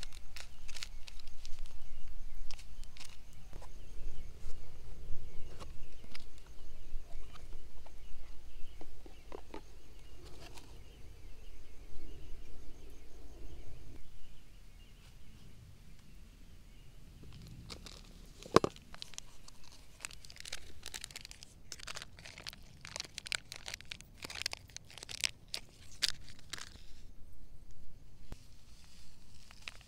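Low wind rumble on the microphone with small rustles. Then a plastic coffee-mix sachet is crinkled and torn open in a dense run of crackles over several seconds.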